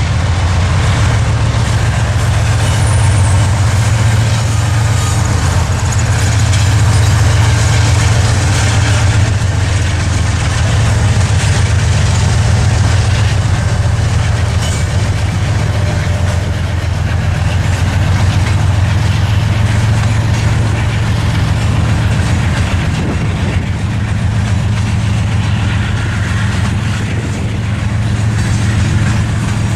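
Canadian Pacific train passing close by: a loud, steady low rumble with rail and wheel noise from the cars going over the track.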